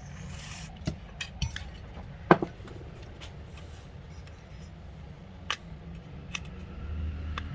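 Small metal repair tools clicking and tapping against an opened iPhone 7 Plus as the charging port flex cable is worked loose, a handful of scattered sharp ticks with the loudest a little over two seconds in, over a steady low hum.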